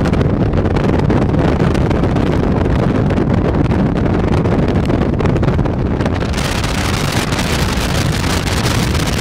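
Wind buffeting the microphone over the steady rumble of a vehicle driving along a sand beach. The rush turns hissier about six seconds in.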